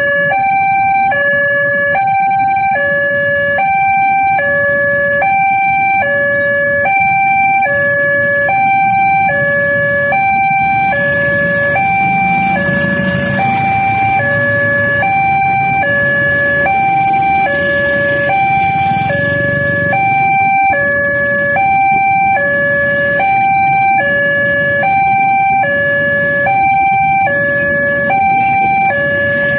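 Railway level-crossing alarm sounding a two-tone electronic warning, switching between a high and a low tone about once a second. Midway through, a diesel locomotive hauling a passenger train runs past, its low engine rumble loudest in the middle and then fading.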